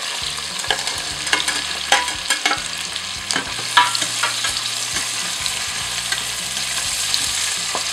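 Diced onion and peppers sizzling in hot olive oil in a stainless steel pot, stirred with a wooden spoon that scrapes and knocks against the pot, the knocks most frequent in the first half.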